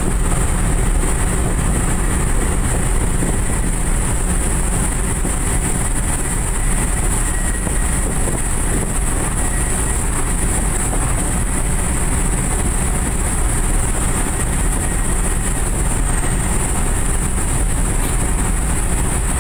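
Cabin noise of a Daihatsu Gran Max pickup driving flat out at about 140 km/h: a steady, loud mix of engine, road and wind noise with a constant high-pitched hiss over it.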